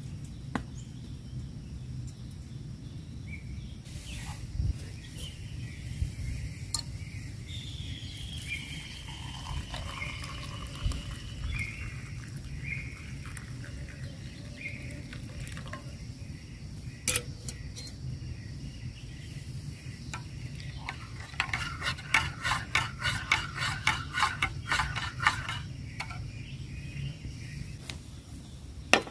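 Camp cooking: metal utensils clinking and scraping against a pot, with scattered knocks and a quick run of clinks about two-thirds of the way through, over a steady low rumble.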